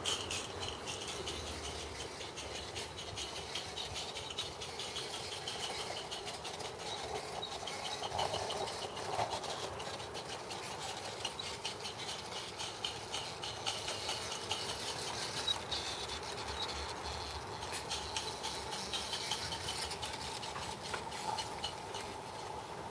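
Roundhouse Silver Lady live-steam garden-railway locomotive running past, a quick even beat of steam exhaust and small wheel clicks, with two sharper clicks near the middle.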